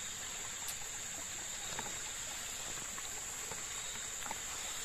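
Insects droning steadily at a high, even pitch, with a few faint soft clicks from a spoon and plate.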